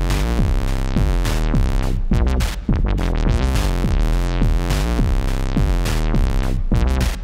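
Moog Sound Studio synthesizers playing a sequenced electronic patch of repeating bass notes and drum-machine hits, many with a quick downward pitch sweep. The note shapes keep shifting as LFOs modulate the rise and fall of an Intellijel Quadrax envelope.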